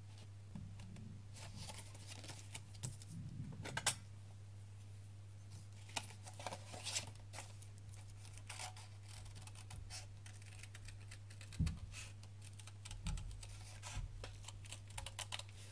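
Faint, irregular scratching and clicking of cardboard and craft tools being worked by hand, with a couple of soft thumps about two-thirds through. A steady low hum sits underneath.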